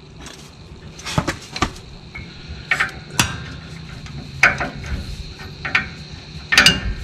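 A wrench and socket clinking against the rear brake caliper bracket as they are fitted onto a 21 mm bracket bolt: about seven sharp metal clanks at uneven intervals, the loudest near the end.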